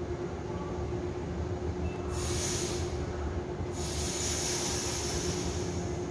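Taiwan Railway EMU900 electric commuter train standing at the platform with a steady hum and low rumble, and two bursts of air hissing: a short one about two seconds in and a longer one from about four seconds until near the end.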